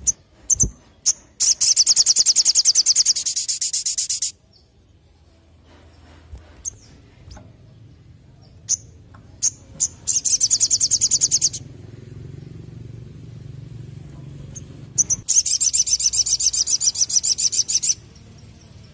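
Male sunbird (sogok ontong) singing in rapid high trills: three long runs of fast, evenly repeated notes lasting about one and a half to three seconds each, with short single chirps between them.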